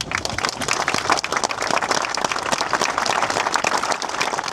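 A crowd clapping and applauding, many hands at once in a dense, steady patter that dies away at the end.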